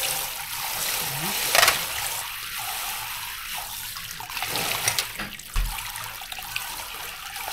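Tap water running into a kitchen sink while clams are rinsed clean of sand, with a few sharp knocks, the loudest about one and a half seconds in.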